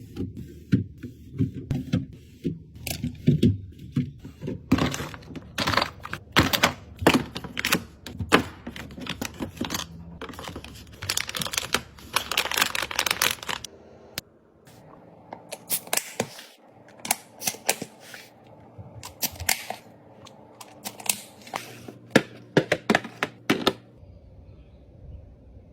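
Quick clicking and knocking of containers and packaging being handled and set down while a fridge is restocked, dense at first with a short stretch of rustling near the middle, then sparser clicks.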